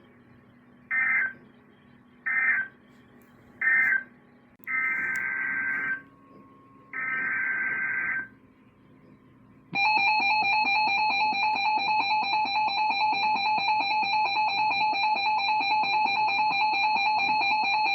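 Emergency Alert System (EAS) SAME digital data bursts: three short buzzy bursts, the end-of-message code closing the previous alert, then two longer header bursts opening a new alert. About ten seconds in, the steady, loud two-tone EAS attention signal starts and holds.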